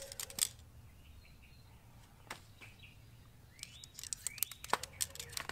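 Light clicks and rattles of tent pole sections being handled, a few at the start and a cluster near the end. Birds chirp faintly in the background.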